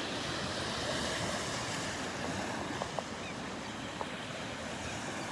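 Ocean surf washing steadily on the beach.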